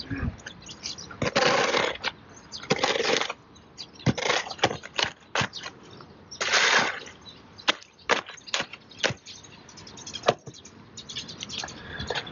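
Steel shovel scraping and slapping through wet concrete on a concrete slab: several rough scrapes of about half a second, with sharp taps and clicks of the blade between them.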